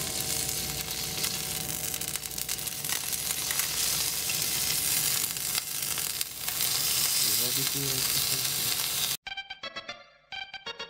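Eel sizzling as it pan-fries in oil in a tamagoyaki pan, turned now and then with wooden chopsticks. The sizzling cuts off suddenly about nine seconds in and music takes over.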